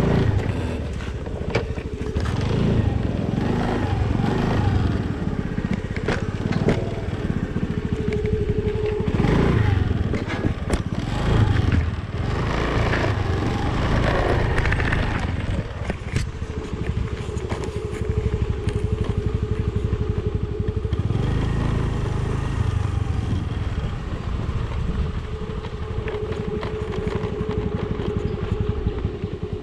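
Motor scooter engine running as it is ridden along a rough dirt trail, with crackling and scraping as it pushes through brush for roughly the first half, then a steadier engine hum.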